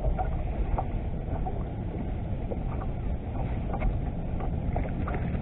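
Steady low rumble of wind buffeting the camera's microphone, with a few faint small clicks.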